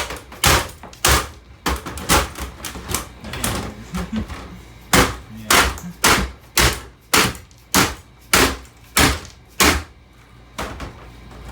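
Repeated hammer blows on a CD player's casing, about two a second, with a stretch of lighter knocks in the middle.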